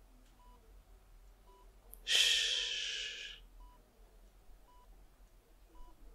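A long, breathy exhale starting about two seconds in and lasting just over a second. Under it, a hospital patient monitor gives a faint short beep about once a second.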